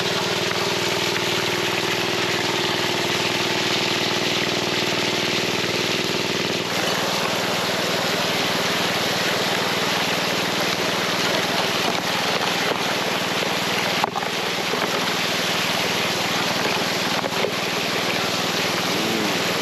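Water rushing steadily through a sluice from a pump-fed spray bar, over the steady hum of a small petrol-engine water pump. The engine's hum is clearer for the first several seconds, then the rush of water covers it; a single click comes about halfway through.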